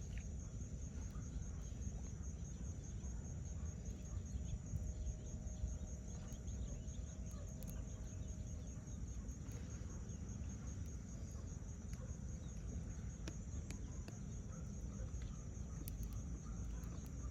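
An insect chirping in a steady high pulse, about five chirps a second, over a constant low rumble of wind or water. A faint held call sounds for several seconds near the start.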